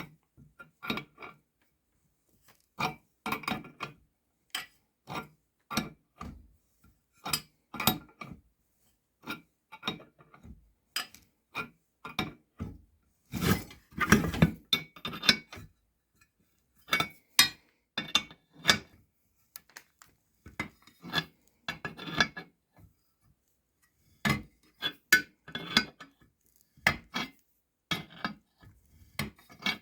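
An inexpensive gear puller being worked on an outboard motor's gear case, pulling a part out. It makes irregular metal clinks and short scraping strokes in clusters, with brief pauses between.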